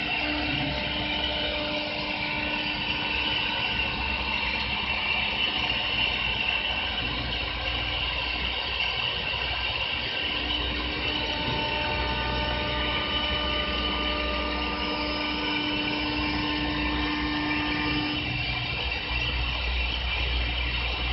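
Double-axis CNC wood lathe running, its two carving spindles cutting lines along two turning wooden workpieces: a steady machine whine of several tones over an even noise.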